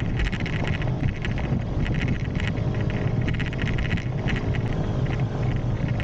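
Small single-cylinder four-stroke motorbike engine running under way on a washboarded dirt road, with irregular bursts of rattling and wind buffeting the microphone.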